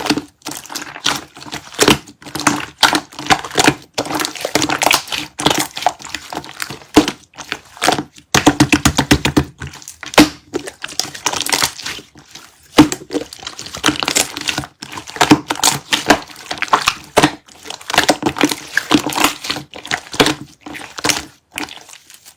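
Clear slime being squished, pressed and stretched by hand, making dense, irregular wet clicks, pops and crackles.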